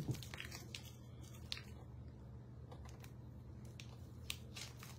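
A plastic bag of glitter being handled and a pair of scissors picked up, giving scattered short crinkles and clicks, the loudest right at the start. A steady low hum runs underneath.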